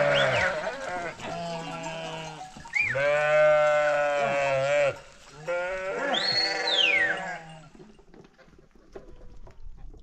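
A flock of sheep and goats bleating: about four long, wavering bleats, partly overlapping. Near the end it turns much quieter, with only scattered faint clicks and knocks.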